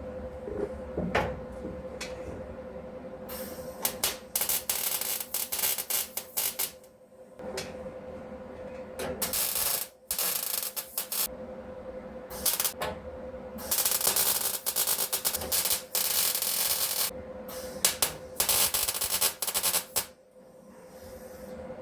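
Welding on car sheet metal: repeated bursts of crackling hiss, some brief tacks and some runs of two to three seconds, with short pauses between them. A steady hum runs underneath.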